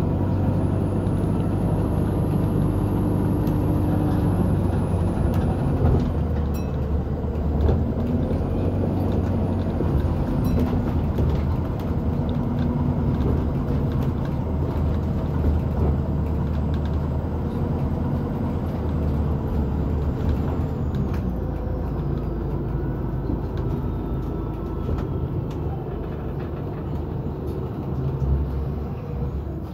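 Interior of a London bus in motion: a steady low rumble of the bus running, with pitched tones that rise and fall every few seconds as it changes speed.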